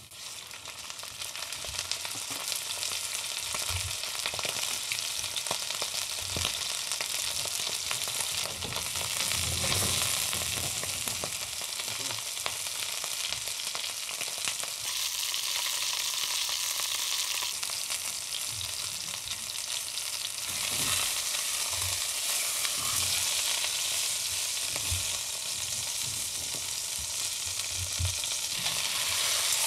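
Roe deer leg searing in hot olive oil in an enamelled cast-iron pan: a steady sizzle that builds in the first couple of seconds as the meat goes in, then holds. A few soft low bumps come from the meat being handled and turned with tongs.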